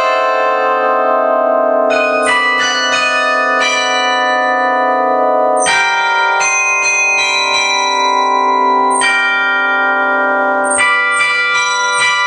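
Carillon of tuned bronze bells playing a melody: notes are struck singly and in quick runs and chords, each one ringing on and overlapping the next.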